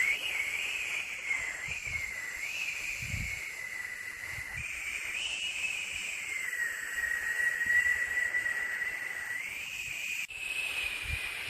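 Steady white-noise hiss with a high whistling tone that wavers gently in pitch. The sound shifts abruptly about four and a half seconds in and again near ten seconds, like joins in a looped recording.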